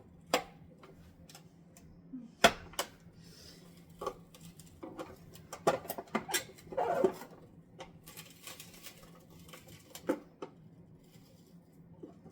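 Plastic mandoline slicer clacking and scraping as onion chunks are pressed against the blade and will not go through. Several sharp knocks are scattered through it, with a longer scrape about seven seconds in.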